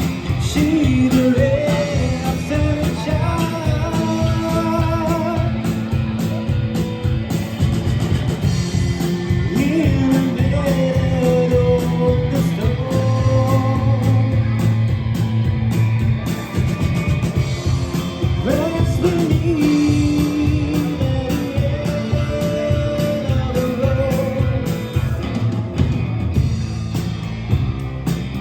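Live rock trio playing a song: electric guitar, bass guitar and drum kit under a sung vocal melody with vibrato. The drums and bass run steadily throughout.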